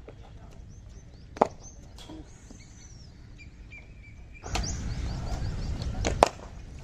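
Outdoor ambience with birds chirping, broken by a sharp knock about a second and a half in and a second sharp knock just after six seconds, as a cricket ball is played. A rushing noise, likely wind on the microphone, rises suddenly a little past the four-second mark and runs up to that second knock.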